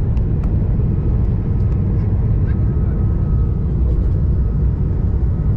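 Airliner cabin noise heard from a window seat: a steady low roar of jet engines and rushing air with a faint thin tone above it, as the plane descends over the city toward the airport.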